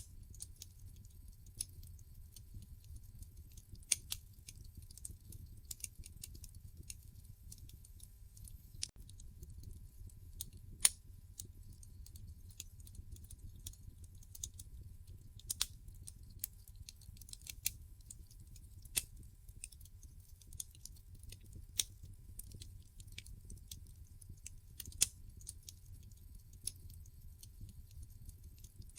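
Wood fire burning in a fireplace: irregular sharp crackles and pops from the logs over a low steady rumble of the flames, with one louder pop about eleven seconds in.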